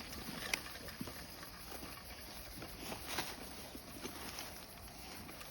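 Footsteps walking on a trail at a slow, uneven pace: scattered soft taps over a faint steady background hiss, with a sharper tap about half a second in and another about three seconds in.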